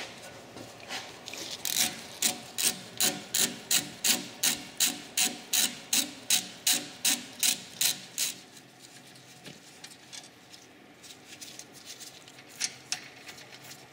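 Ratchet wrench with a half-inch socket undoing a rear brake caliper bolt: a run of quick, even ratchet strokes, about two or three a second, that stops about two-thirds of the way through, followed by a few faint clicks.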